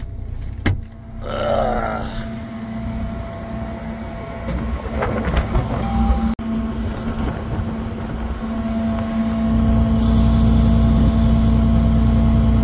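A combine harvester's engine running with a steady droning hum, and a sharp click about a second in. Around ten seconds in it grows louder, with a deeper rumble and a high hiss.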